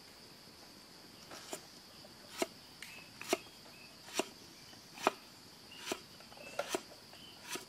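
Cleaver chopping on a wooden chopping board, one sharp knock about every second at an even pace, over a steady high drone of crickets or cicadas.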